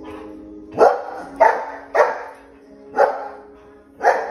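A black schnauzer barking five times in short, sharp barks, reacting to a dog on the television. Steady music from the TV plays under the barks.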